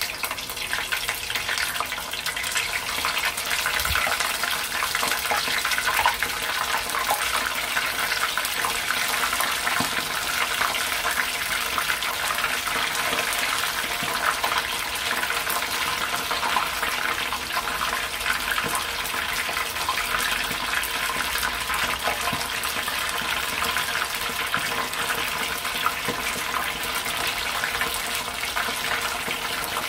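Batter-coated squid rings deep-frying in hot oil in a saucepan: a steady, dense sizzle and crackle of bubbling oil as more pieces are dropped in.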